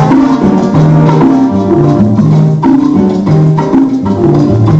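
Salsa music played loud: a repeating bass line under busy hand percussion.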